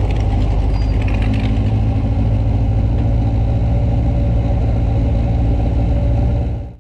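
Car engine running steadily at low revs, a deep even drone that cuts off abruptly at the very end.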